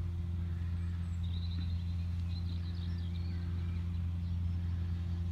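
Steady low outdoor hum, with a bird chirping faintly for a couple of seconds about a second in.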